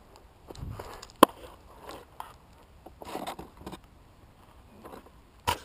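Footsteps through dry crop stubble and hands handling a light foam model jet, rustling and scraping, with a sharp click about a second in and another near the end.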